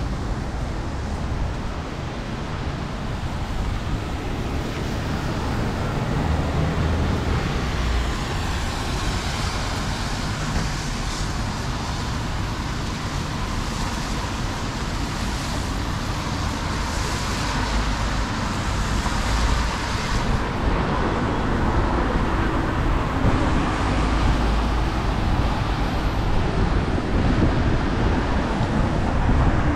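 Rainy city street ambience: steady road traffic with tyres hissing on the wet road, over a continuous low rumble, and some louder hissing swells in the middle as vehicles pass.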